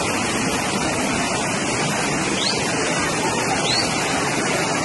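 Muddy floodwater rushing down a street in a flash flood: a steady, loud, unbroken roar of turbulent water.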